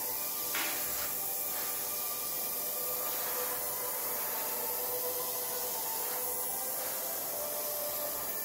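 Gravity-feed airbrush spraying thinned yellow lacquer paint: a steady hiss of air and atomised paint.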